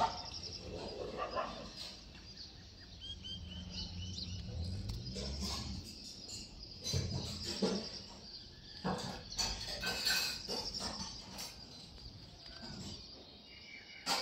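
Rural outdoor ambience with birds calling, including a quick run of short high chirps about four seconds in. A low rumble runs underneath for a few seconds, and there are a few short, louder knocks.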